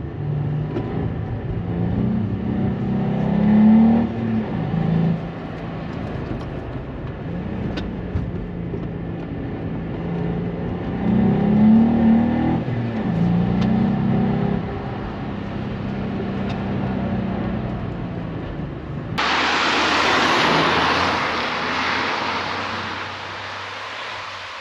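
Volkswagen up! GTI's turbocharged three-cylinder engine accelerating, revs climbing twice with a drop between. Near the end a sudden rushing hiss takes over and fades away.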